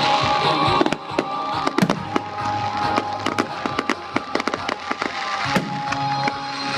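Fireworks going off in a rapid string of sharp cracks and pops, thickening from about two seconds in, over music playing.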